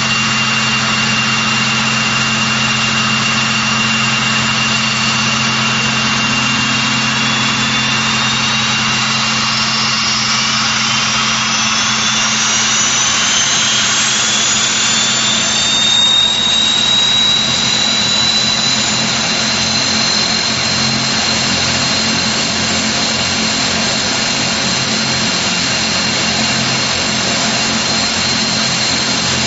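Vickers Vanguard's Rolls-Royce Tyne turboprop engines running on the ground with a steady high whine. Through the middle, a second turbine whine rises in pitch over several seconds and then holds steady as engine speed picks up.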